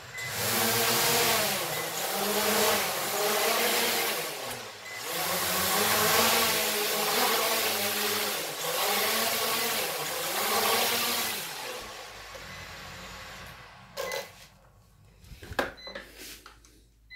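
Hubsan H501S quadcopter's brushless motors and propellers running as it takes off and hovers, the pitch rising and falling with the throttle. The motors stop about 11 to 12 seconds in, and a few knocks and clicks follow.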